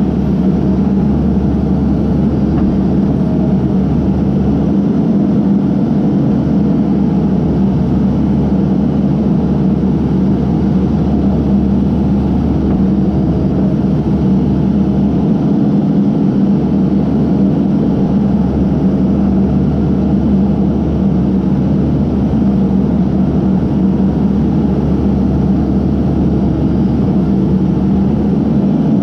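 Case backhoe's diesel engine running steadily, a loud continuous drone with no breaks.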